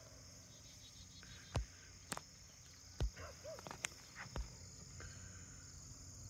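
Field insects chirping in a steady high-pitched chorus, with a handful of sharp clicks or knocks, the loudest about one and a half and three seconds in.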